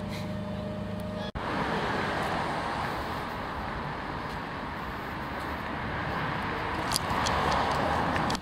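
Steady city street traffic noise, growing louder near the end with a few short clicks. The first second or so is a steady low hum that cuts off suddenly.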